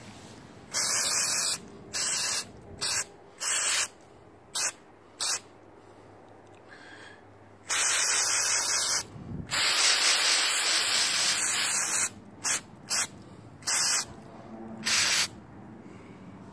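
Aerosol spray paint can hissing in about a dozen short bursts, with two longer sprays of a second or more in the middle.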